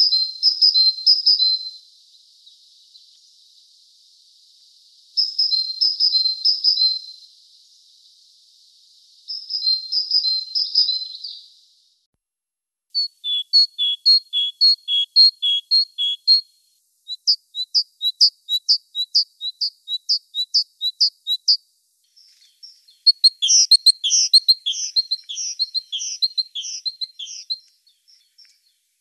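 Great tit singing: phrases of quickly repeated high two-note whistles, in bursts of a few seconds with short pauses between, the later phrases faster and denser.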